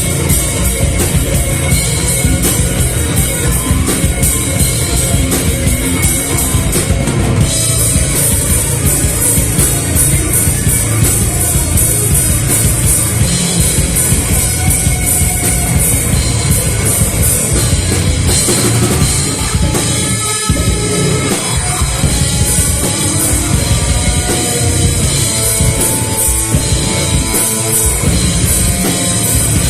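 A rock band playing live: loud, dense music driven by a drum kit with a steady bass drum. The low end drops out for a moment about two-thirds of the way through.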